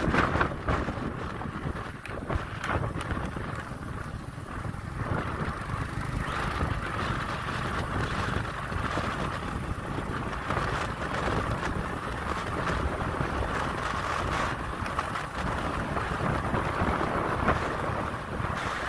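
Wind buffeting the microphone during a motorbike ride on a dirt road, over the steady noise of the running bike and its tyres. The rush grows fuller and steadier about five seconds in.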